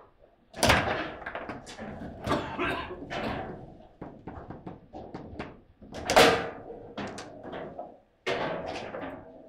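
Table football play: the ball and the rod-mounted plastic players knocking against each other and the table, in an irregular series of sharp knocks, the hardest about half a second in and again about six seconds in.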